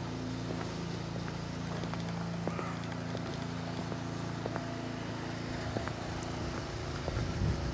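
Footsteps of someone walking along a paved country lane, faint irregular knocks over a steady low hum.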